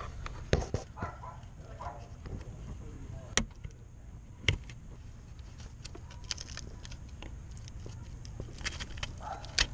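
Several sharp plastic clicks and knocks as the electrical connector on an intake manifold runner control valve is handled and worked loose, over a steady low hum.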